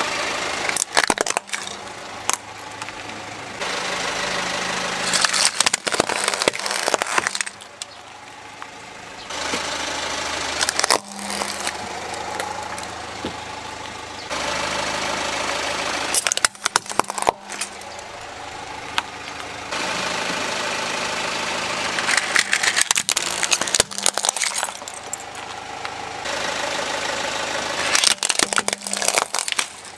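Car engine idling as the tyre rolls onto small plastic toys, in several short edited clips; each crush gives a cluster of sharp cracking and crunching, about six times.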